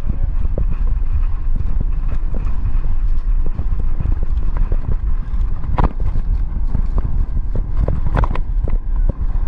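Heavy wind rumble on the microphone of a camera riding a towed inflatable tube, with irregular knocks and splashes as the tube bounces over the water; two louder hits about six and eight seconds in.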